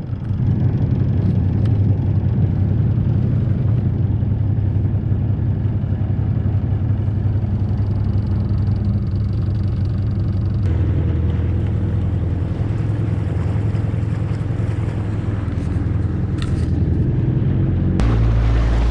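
A small fishing boat's engine running steadily under way, a loud low rumble whose pitch shifts about ten seconds in. Near the end, water rushing along the hull and wind on the microphone join in.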